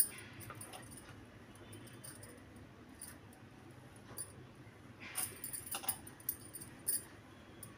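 Bangles clinking against one another in short, scattered clicks as hands gather fabric at a sewing machine, with a cluster of clinks about five to six seconds in. A faint steady low hum runs underneath.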